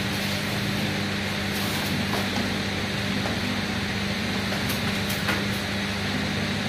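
Steady mechanical room hum with a constant low tone, like an air conditioner or fan running, and a few faint soft taps as a person moves on an exercise mat.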